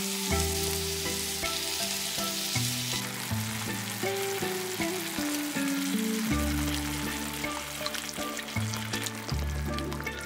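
Food sizzling in a frying pan, the hiss strongest in the first few seconds, over background music with a slow, stepping bass line.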